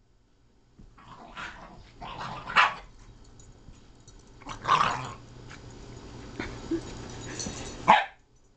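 Dogs play-fighting: corgis and a larger short-coated dog growling on and off, broken by several sharp barks, the loudest about two and a half, five and eight seconds in.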